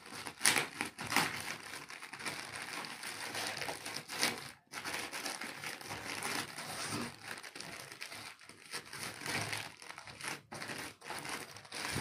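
Plastic mailer bag crinkling and crackling as it is pulled open and unwrapped by hand, with a few sharper crackles in the first half.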